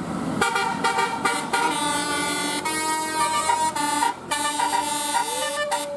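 Bus 'telolet' musical air horn playing a tune: a quick run of stepped horn notes, one after another, with a short break about four seconds in.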